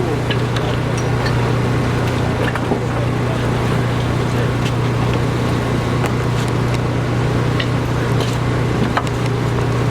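Machinery engine running steadily with a low, constant hum, with scattered light clicks and knocks.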